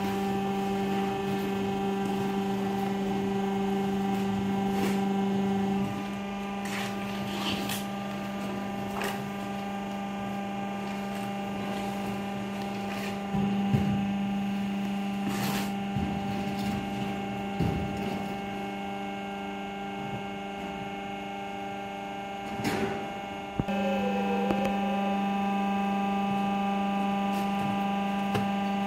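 Vertical hydraulic baler's electric motor and pump humming steadily under load while the ram presses cardboard cartons into a bale, with a few scattered clicks and knocks. The hum eases off about six seconds in and comes back stronger near the end.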